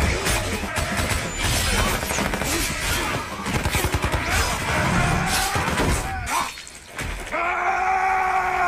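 Film fight sound effects: a dense run of crashes, thuds and smashing impacts over a music score, with a brief drop about seven seconds in, followed by a man's long held yell.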